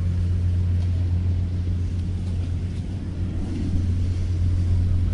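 Boat engine running steadily, a low even hum.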